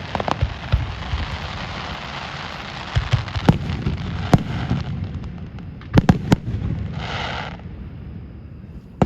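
Aerial fireworks going off: dense crackling, with sharp bangs about three and a half and four and a half seconds in and a quick pair around six seconds. The crackle thins out in the second half, with a short hiss near the end.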